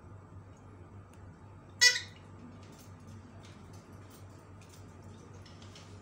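A single short, loud squawk from an Alexandrine parakeet about two seconds in, over a steady low hum and faint clicks.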